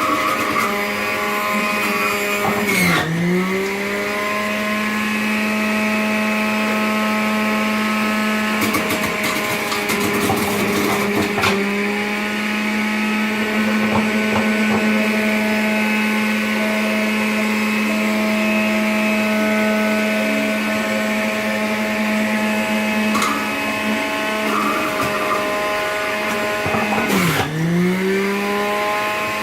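Black & Decker electric juicer's motor running with a steady whine. Twice, about three seconds in and near the end, the pitch sags briefly and climbs back as produce is pushed in and loads the motor. There is some clattering in the middle.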